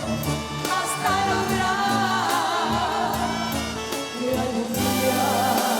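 A woman singing a drawn-out, wavering line of a Mexican ballad over banda accompaniment, with brass and a low bass line changing notes every second or so.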